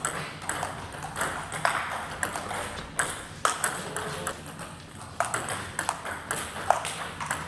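Table tennis rally: the ball clicking sharply off the bats and the table in quick alternation, a few hits a second at an uneven rhythm, echoing in a large sports hall.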